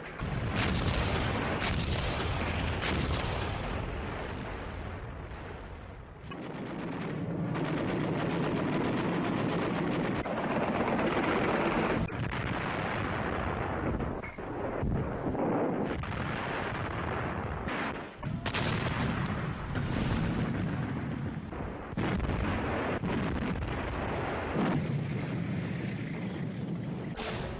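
Battlefield gunfire and artillery: a dense run of rifle and machine-gun shots mixed with heavy blasts, the mix changing abruptly every few seconds.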